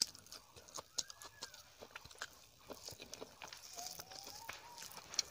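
Close-miked chewing and wet mouth clicks of someone eating rice and chicken curry with the fingers, many small sharp smacks in quick succession. Two faint pitched calls sound in the background, one about a second in and one near four seconds.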